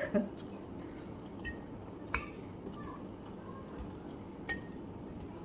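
Metal fork clinking against a ceramic plate while twirling spaghetti: a few short, sharp clinks spread through a few seconds.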